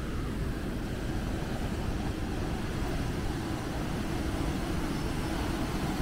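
Steady low rumbling noise with no distinct events, its loudness fluttering unevenly throughout.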